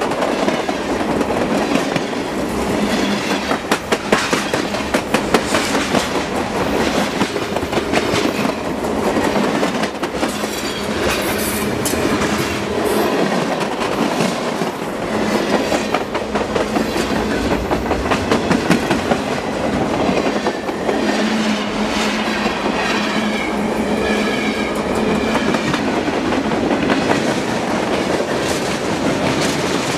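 Freight train rolling past, a steady rumble with the clickety-clack of its wheels over the rail joints.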